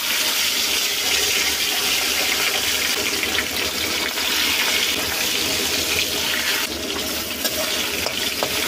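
Pieces of tengra catfish sizzling in hot oil in a kadhai, a loud steady hiss that starts abruptly as the pieces go into the oil.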